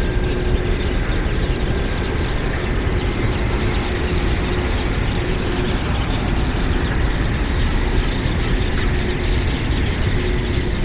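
Steady low rumble of distant engine noise, with a faint hum that comes and goes; no bird calls stand out.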